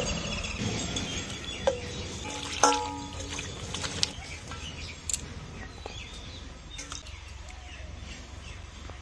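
Stainless steel bowls and plates clinking a few times. The loudest clink comes a little under three seconds in and rings briefly. Between the clinks there is light splashing as green chilies are rinsed by hand in water in a steel bowl.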